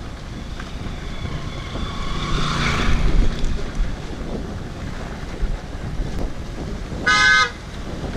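Motorcycle engine running under way on a rough dirt road, a steady low rumble. About seven seconds in, a vehicle horn gives one short toot, the loudest sound here.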